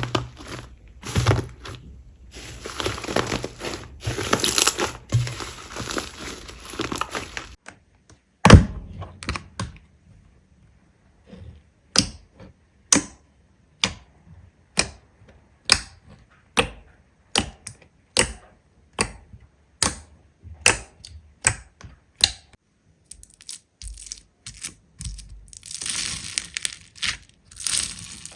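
Slime being worked by hand for ASMR: dense crackling and crunching, then a run of sharp pops or clicks about once a second, then crackling again near the end.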